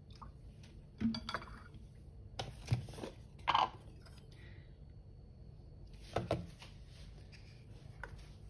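A few scattered knocks and clinks of a soy sauce bottle and a flour jar being handled and set down on a granite countertop beside a plate, over quiet room noise.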